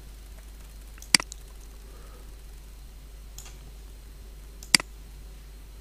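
Two sharp computer mouse clicks about three and a half seconds apart, with a fainter tick between them, over a low steady room hiss.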